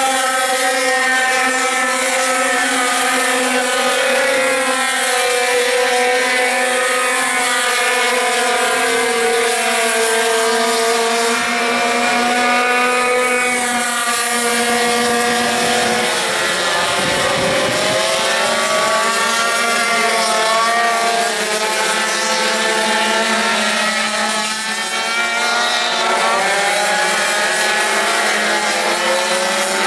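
A pack of racing pocket bikes, several small high-revving engines whining at once, their pitches rising and falling as the riders accelerate and brake through the corners. About seventeen seconds in, one bike passes close, its pitch swooping down.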